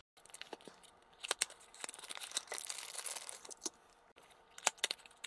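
Small cardboard box of a 1/64 scale diecast model car being opened by hand: faint scattered clicks and taps, with a stretch of packaging rustling in the middle.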